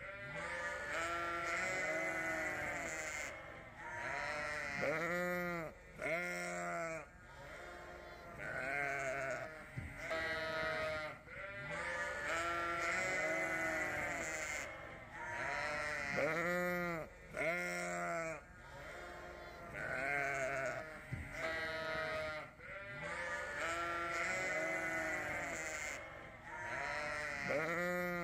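Sheep bleating, many overlapping calls following one another with hardly a break.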